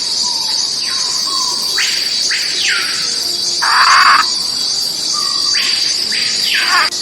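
Macaw giving several harsh squawks, the loudest about four seconds in, over a steady high insect buzz.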